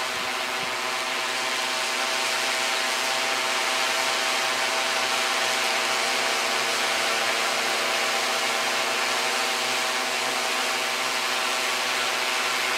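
Multirotor drone's electric motors and propellers running steadily in a hover, heard from on board: a steady whine of several tones over a hiss.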